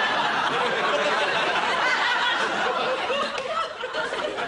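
Studio audience laughing at a joke, a crowd laugh that holds steady and then dies away near the end.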